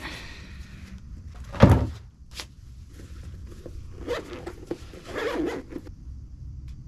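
Camping gear being handled and packed: a loud thump about a second and a half in, then short knocks and stretches of rustling and scraping.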